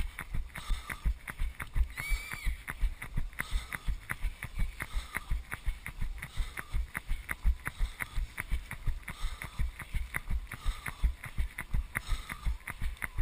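A runner's own footfalls on a wet paved path at race pace, a steady rhythm of about three steps a second, with the worn camera jolting at each stride.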